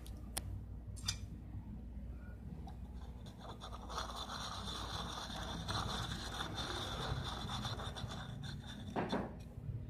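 Faint rustling and scraping from a hand-held phone being moved, over a low steady hum. A few light clicks come in the first second.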